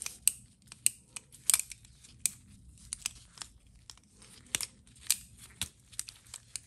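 TH350 transmission governor worked by hand: sharp metal clicks, about two a second and unevenly spaced, as the flyweights are swung and the governor valve shifts in its bore. The valve is starting to move freely.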